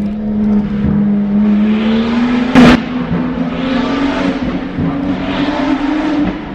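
BMW 135i's N55 turbocharged inline-six accelerating through a tunnel, heard from inside the cabin. The engine note jumps up at the start, then climbs steadily in pitch. A single sharp crack comes about two and a half seconds in.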